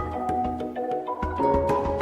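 Background music: soft mallet-percussion melody, like vibraphone or marimba, with sustained ringing notes over a low bass.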